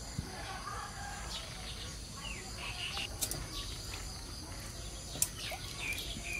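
Small birds chirping over a steady outdoor hiss, while water splashes and drips in an aluminium basin as a vegetable is rubbed clean by hand. Two sharp clicks stand out, about three and five seconds in.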